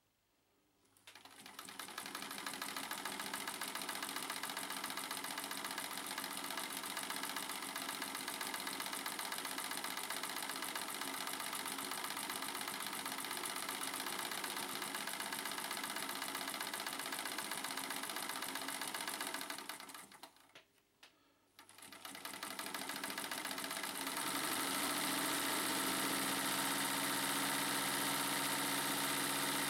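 Vintage electric Singer sewing machine running and stitching fabric, a steady mechanical run that starts about a second in. It stops briefly about twenty seconds in, starts again, and near the end runs on with a stronger low hum.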